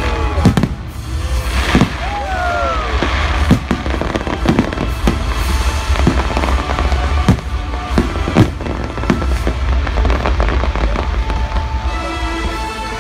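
Fireworks going off in repeated sharp bangs and crackles over loud orchestral-style soundtrack music with a steady low bass. A few falling whistles are heard in the first few seconds.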